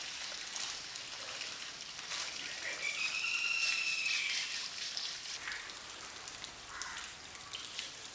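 Hose water spraying and splashing onto an elephant's wet hide as it is scrubbed by hand, a steady patter with short splashy strokes. A brief high whistle-like tone sounds about three seconds in.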